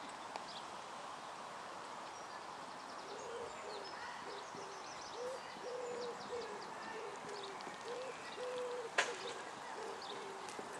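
A dove cooing in the background: a repeated phrase of short, low, hooting notes, some held a little longer. A single sharp click comes about nine seconds in.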